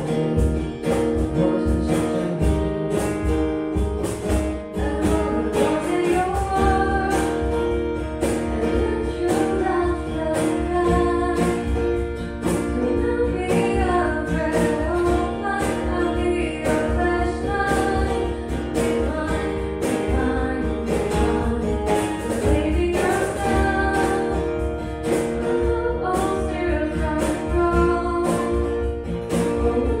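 Live acoustic music: a woman singing into a microphone over a strummed acoustic guitar, amplified through a PA.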